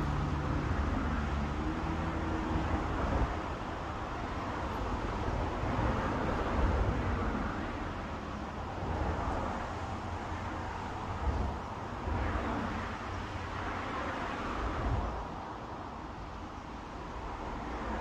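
Road traffic noise: a continuous hiss and low rumble that swells and fades every few seconds as vehicles pass.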